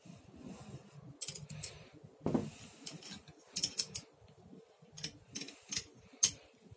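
Steel open-end wrench clicking and clinking on the hex nut of a bicycle axle as it is tightened by hand: irregular sharp metal clicks, with a heavier knock about two seconds in and a quick cluster of clicks a little later.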